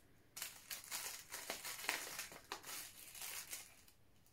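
Black tea sachet crinkling and rustling as it is squeezed and worked by hand to push the loose tea forward inside, in an irregular run of crackles that dies away near the end.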